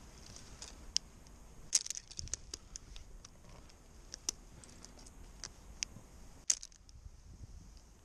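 Scattered light clicks and metallic clinks of tree-climbing hardware, carabiners and a rope device on the climbing line, as it is handled on the rope; the sharpest clicks come about two seconds in and again about six and a half seconds in.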